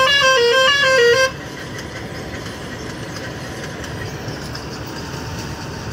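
Musical vehicle horn playing a repeating tune of stepping notes, cutting off suddenly about a second in, followed by a steady engine running.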